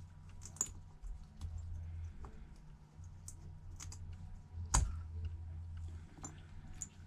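Light, scattered clicks and taps of tweezers and small metal phone parts, such as the front camera bracket, being set into an iPhone 8's screen assembly. The sharpest tap comes a little before five seconds in, over a low steady hum.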